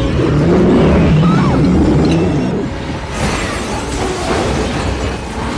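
Film sound effects of a fiery explosion: a loud, dense low rumble with hiss. A wavering cry rises over it in the first couple of seconds, and the hiss grows brighter from about three seconds in.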